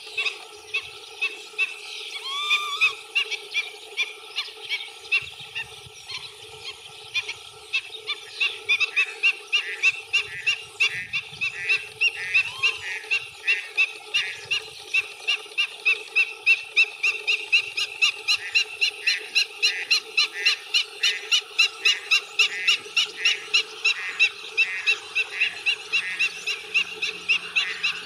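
Animal calls: short, sharp calls, scattered at first, then from about eight seconds in a fast, even series of about three a second, over a steady lower-pitched chorus.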